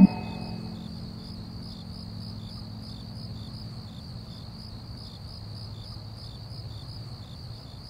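Crickets chirping steadily in an even, high-pitched pulsing trill of about three chirps a second, over a faint low hum.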